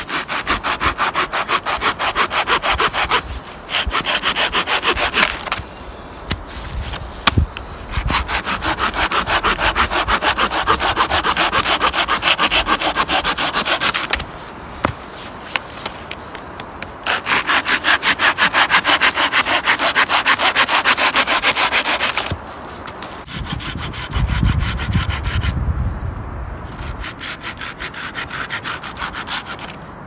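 Small hand saw cutting through a dead branch, in long runs of quick, even back-and-forth strokes with short pauses between runs.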